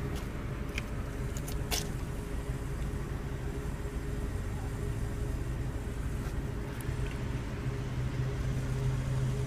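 Steady low hum of a car idling, heard from inside the car with a door open, with a few light clicks about a second in.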